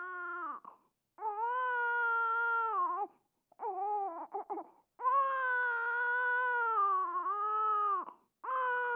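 Long, wavering wailing cries, four of them in a row, each held for one to three seconds and cut apart by short complete silences.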